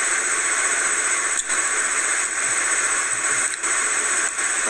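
Steady, loud static-like hiss with a few faint clicks.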